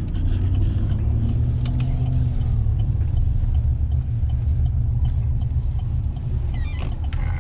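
Vehicle driving along, a steady low engine and road rumble.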